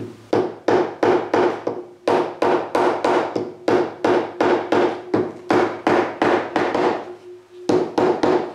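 Soft-faced mallet tapping repeatedly on a Harley-Davidson Sportster's aluminium cam cover, about three blows a second, with a short pause near the end. The cover is being knocked loose from the engine case.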